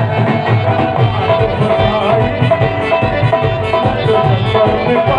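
Loud music with a steady drum beat under a held, wavering melody line.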